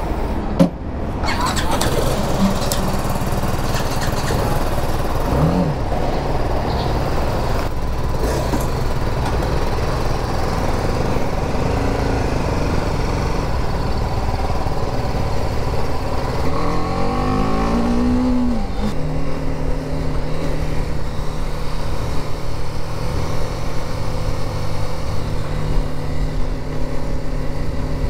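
BMW G 310 GS's 313 cc single-cylinder engine running as the bike pulls away and rides through traffic, with a short knock just after the start. About two-thirds of the way through it revs up through the gears with rising pitch, then holds a steady note at cruising speed.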